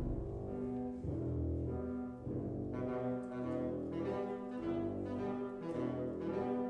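Background music with long held notes that change in slow steps.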